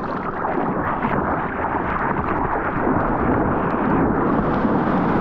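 Ocean water rushing and splashing against a board-mounted camera at the surface of the surf, a steady rumbling wash that grows a little louder.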